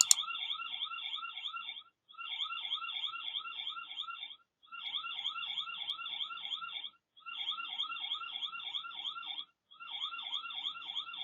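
Electronic alarm siren sounding, set off at the house: rapid rising-and-falling chirps, about five a second, in bursts of about two seconds with short pauses between them.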